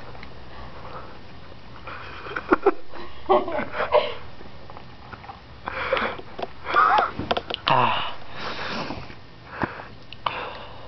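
A person's sharp sniffs, gasps and breathy vocal sounds in irregular bursts, with a few short pitched voice sounds among them, while he tries a hiccup cure of drinking with his breathing held off.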